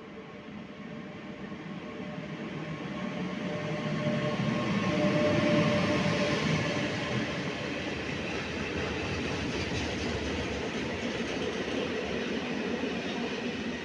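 Siemens ES64F4 electric locomotive passing at speed with a freight train of loaded open wagons. The sound grows as the locomotive nears and passes about five seconds in, with a faint whine, then settles into the steady rolling noise of the wagons going by.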